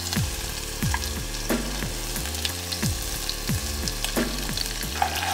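Minced garlic sizzling in hot olive oil in a saucepan, a steady frying hiss, with a low repeating beat about twice a second underneath.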